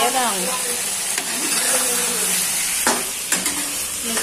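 Turmeric chicken curry sizzling in a large aluminium kadai as a metal ladle stirs it, a steady frying hiss. Two sharp clicks come about three seconds in.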